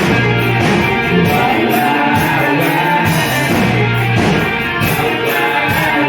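Rock music with guitar over drums keeping a steady beat.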